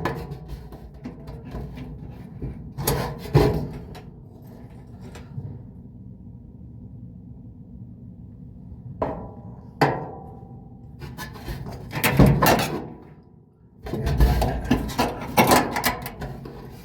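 Hand work on a dryer's idler pulley assembly: scattered knocks and clatter of metal parts. There are two knocks about three seconds in and two more near ten seconds, then a busier run of knocking and scraping in the last few seconds.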